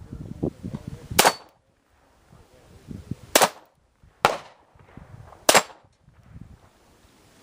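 Four sharp gunshots at irregular intervals, two of them less than a second apart.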